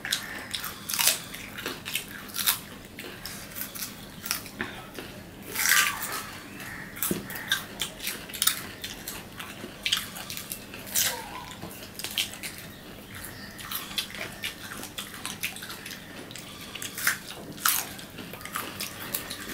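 Two people biting and chewing crisp pieces of raw amra (hog plum) fruit close to the microphone, with irregular sharp crunches throughout. The loudest crunch comes about six seconds in.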